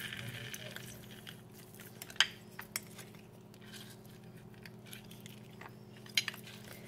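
A few sharp clicks and light taps as a hand-held lever lime squeezer is worked over a metal salad bowl, over a steady low hum.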